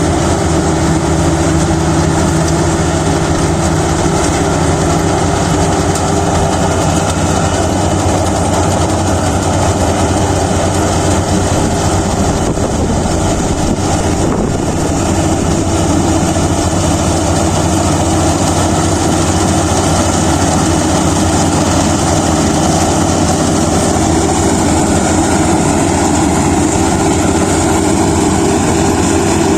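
Kubota DC-35 combine harvester's diesel engine and threshing machinery running steadily while harvesting rice.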